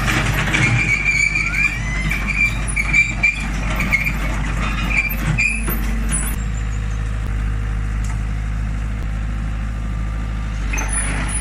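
Hitachi excavator's diesel engine running steadily with a low hum. Intermittent high squeaking sounds over it stop about six seconds in.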